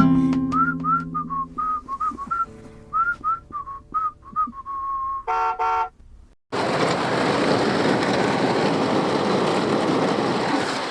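A whistled tune over acoustic guitar winding down to a final chord and stopping about six seconds in; after a brief silence, the steady hiss of heavy rain.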